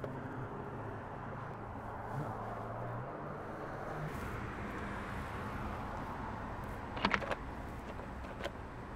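Steady outdoor background with distant traffic. A short cluster of sharp plastic clicks comes about seven seconds in and a single click near the end, as a VHS tape's plastic clamshell case is handled and opened.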